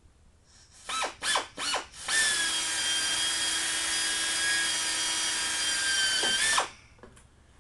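Pneumatic air drill: three short spin-ups, then a steady run of about four and a half seconds that stops sharply, as it drills a rivet hole through thin aluminium sheet.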